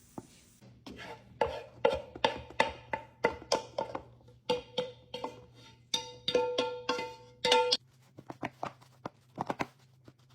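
A spoon clanking and scraping against a mixing bowl while stirring homemade dog food: repeated knocks, about two to three a second, each with a short ring at the same pitch. They stop about 8 seconds in, and a few lighter taps follow.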